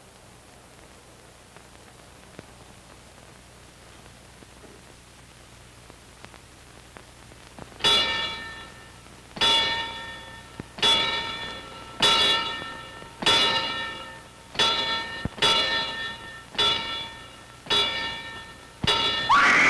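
Boxing ring bell struck slowly ten times, each stroke ringing out: a ten-count tolled in memory of a dead fighter. The strokes begin after about eight seconds of faint soundtrack hiss, and a short falling, sliding sound cuts in at the very end.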